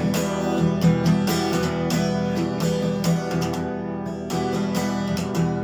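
Acoustic guitar strummed in a steady rhythm, with no singing over it.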